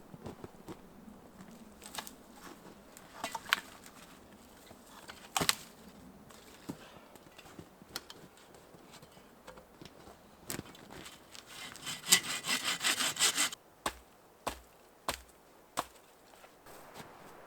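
Hand saw cutting wood in a quick run of strokes lasting under two seconds, about two-thirds of the way through, with scattered sharp knocks and cracks of wood before and after.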